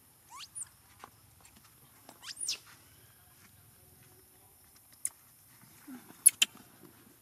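Baby macaque giving two high, thin squealing calls that sweep up and fall back, one near the start and one about two seconds in. A few sharp clicks follow near the end.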